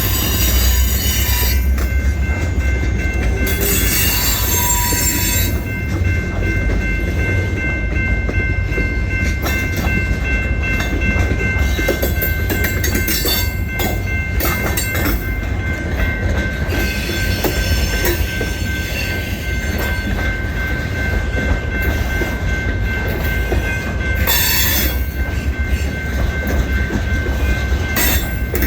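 Freight train rolling by: a steady low rumble of wheels on rail, with thin, steady high-pitched wheel squeal and stretches of louder high screeching near the start, a few seconds in, and near the end.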